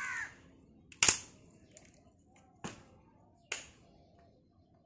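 Three sharp cracks of green wood being split and broken apart by hand for firewood: the loudest about a second in, then two more roughly a second and a half and a second apart.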